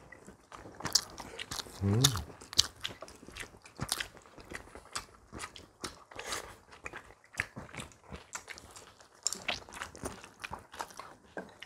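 People eating at a table: chewing and biting, with many small, irregular clicks of chopsticks and spoons against bowls and plates.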